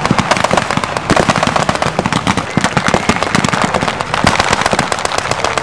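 Heavy blank gunfire from many WWII-type guns at once: rapid, overlapping shots crackling without a break.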